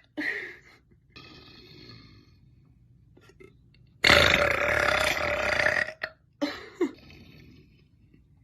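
A woman burping: a short burp right at the start, then one long, loud, steady-pitched burp of about two seconds about four seconds in, followed by two short ones.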